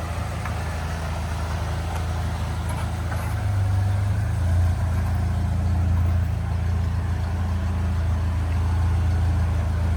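An engine idling with a steady low hum, a little louder from about three and a half seconds in.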